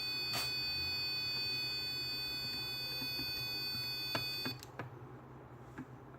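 Passive buzzer sounding the alarm as one steady, continuous tone, driven by a 1 kHz square wave. It cuts off suddenly about four and a half seconds in, with a few faint clicks around then.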